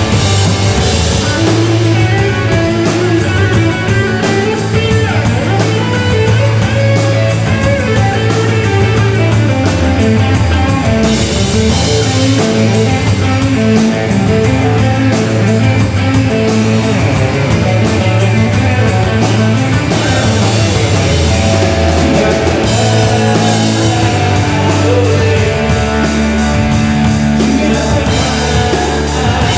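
Live rock band playing loud: drum kit with crashing cymbals, electric guitars and electric bass driving a steady fast beat.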